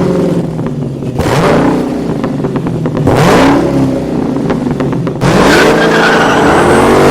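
Car engine revving repeatedly, its pitch rising and falling in surges, loudest in the second half.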